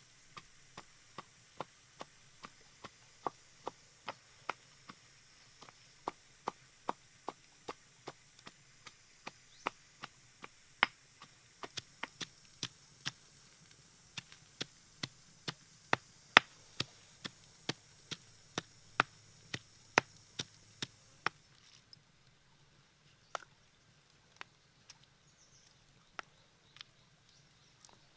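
Steady chopping on a hard surface: sharp knocks about two a second, thinning out to occasional strikes after about twenty seconds, over a faint high hiss.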